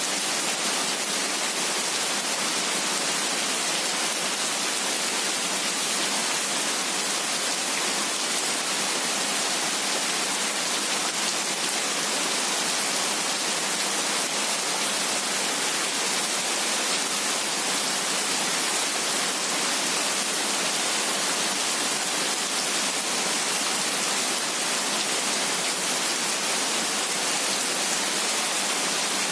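Heavy rain falling as a steady, even hiss with no individual drops or thunder standing out.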